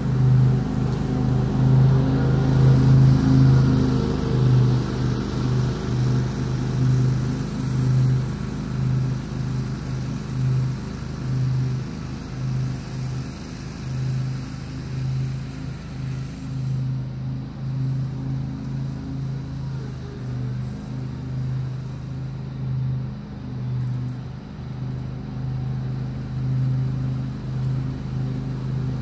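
Grasshopper Model 612 zero-turn mower's engine running steadily under mowing load, a low drone. It grows fainter through the middle as the mower moves farther off and picks up again near the end.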